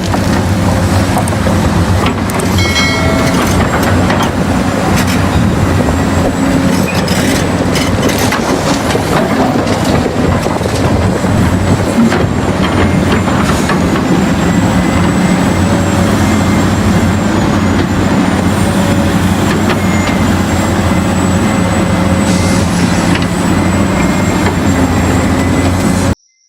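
Heavy diesel machinery running steadily under load, with a low engine drone and rattling metallic clatter. It cuts off abruptly near the end.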